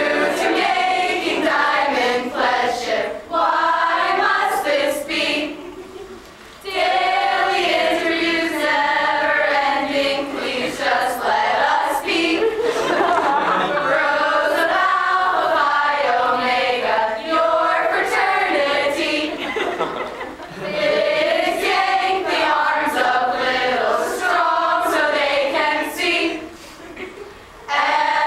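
A group of about twenty mixed voices, mostly women, singing together without accompaniment, breaking off briefly about six seconds in and again near the end.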